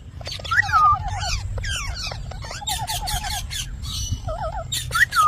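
A parrot calling: a busy run of whistled notes that slide up and down, short rapid trills that come back every couple of seconds, and scratchy chatter.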